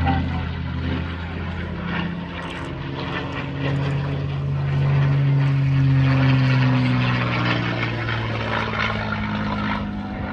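North American P-51D Mustang's V-12 Merlin engine in a display pass, growing louder to a peak about halfway through, then easing off as its pitch drops slightly.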